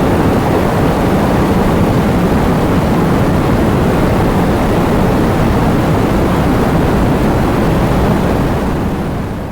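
Heavy wind and rain: a loud, steady roar of noise that fades out near the end.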